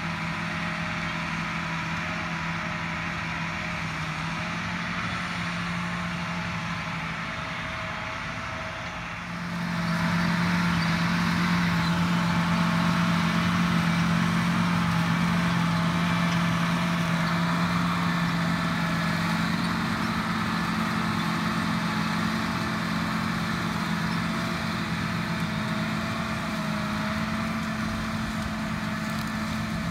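John Deere 8245R tractor's diesel engine running steadily under load as it pulls a chisel plow through corn stalks, growing louder about ten seconds in as the tractor nears.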